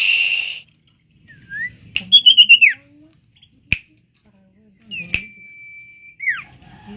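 Common iora singing: a short harsh chatter, a rising whistle, a quick warbled run of notes dropping in pitch, then one long level whistle that slides down at the end. Sharp single clicks, like finger snaps, fall between the phrases.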